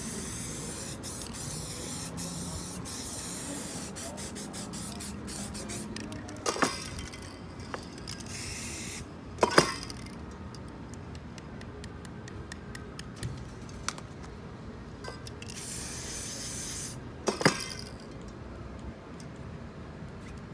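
Aerosol spray-paint can hissing in quick short spurts for about the first six seconds, then in two shorter sprays later on. A few sharp knocks come between the sprays, the loudest about a third of the way through.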